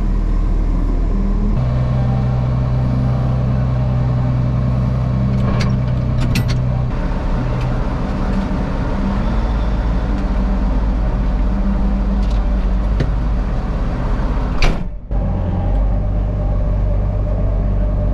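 Vehicle engine running steadily under load, its note shifting a little about a second and a half in and again around seven seconds. A single sharp click comes near the end, followed by a brief dropout.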